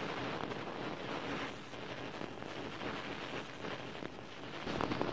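Steady, fairly quiet rushing noise like wind, the rumbling bed of an animated end-screen sound effect after its opening boom, with a few soft crackles near the end.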